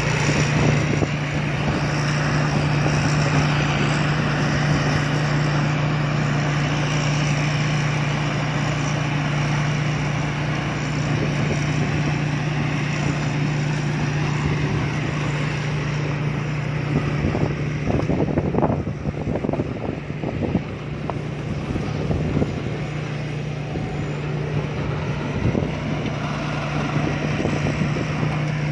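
Rice combine harvester running steadily, its engine holding a constant low hum under a broad mechanical noise. A spell of irregular knocking and rattling comes about two-thirds of the way in.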